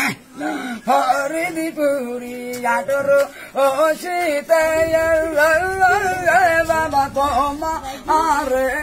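A man singing a long wordless melody, holding drawn-out notes that waver and bend in pitch. A low hum comes in beneath him about halfway through.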